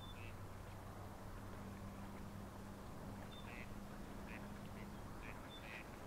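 A flock of coots and ducks on open water giving a handful of short calls, most of them in the second half, over wind noise and a steady low hum.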